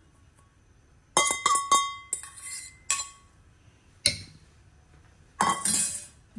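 Dishes and utensils being handled, clinking: a quick run of three ringing clinks after about a second, a short scrape, another clink about three seconds in, a sharp knock about four seconds in, and a brief clatter near the end.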